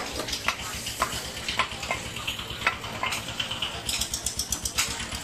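Butcher's cleaver chopping beef on a round wooden log block: sharp, unevenly spaced chops, about two a second, over a steady hiss.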